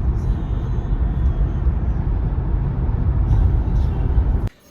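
Steady low rumble of road and engine noise inside a moving car, cutting off suddenly near the end.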